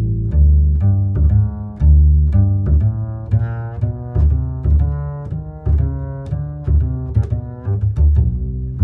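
Background music: low string notes over a steady beat of clicks.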